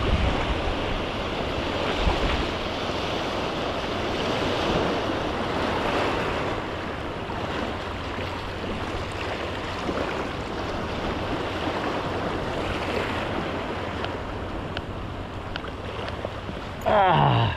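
Small waves washing and lapping over rocky shore flats, with some wind on the microphone. Near the end, a short loud tone sweeps quickly down in pitch.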